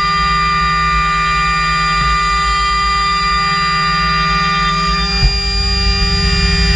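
Router running at speed, its Wealden Tools spiral chip-limiting finishing rougher bit cutting a half lap in wood: a steady high whine with many tones over a low rumble of cutting, with a sharp knock about five seconds in after which the low rumble changes.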